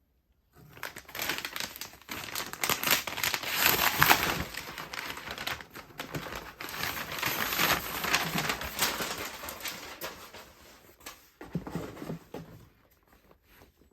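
Paper packaging rustling and crinkling as a shipping box is unpacked by hand, with many small crackles and handling knocks. It is loudest about four seconds in and dies down near the end.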